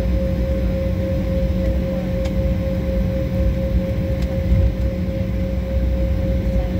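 Jet airliner cabin noise while taxiing: a steady low rumble from the engines at taxi power, with ventilation hiss and a constant mid-pitched hum.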